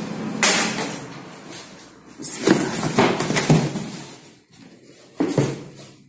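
Hand tools being set down and handled on a metal workbench: a series of knocks and clatters, one about half a second in, a cluster between two and a half and three and a half seconds in, and one more near the end.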